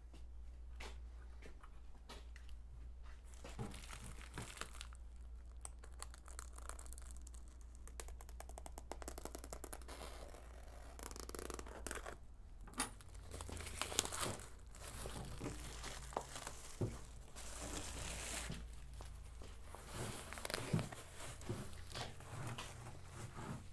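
Packaging being opened by hand: crinkling and tearing, with scattered light clicks and a few louder knocks.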